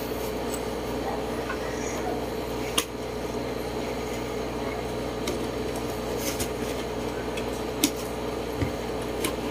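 A cardboard figure box is handled and its tape cut open, giving a few short sharp clicks and taps over a steady room hum.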